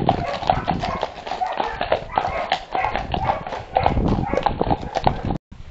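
Several horses' hooves clip-clopping on a concrete farm lane, heard from the saddle as a dense, irregular run of sharp knocks. The sound cuts off abruptly near the end.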